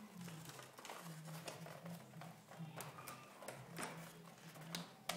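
Light clicks and knocks of a die-cast model truck on its clear plastic display base being handled and set down on a table, a handful of separate taps over a steady low hum.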